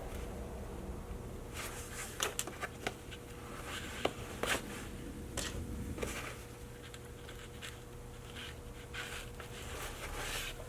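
Hand-sewing with a needle and thread through backpack fabric: faint scratches, rustles and small clicks as the needle passes and the thread is drawn through, over a steady low hum.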